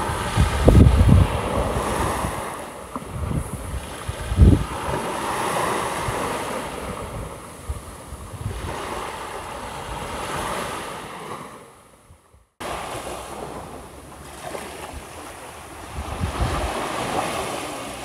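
Small waves breaking and washing up a sandy shore, swelling and easing every few seconds, with wind buffeting the microphone in the first few seconds. The sound fades out briefly about twelve seconds in, then the wash of waves resumes.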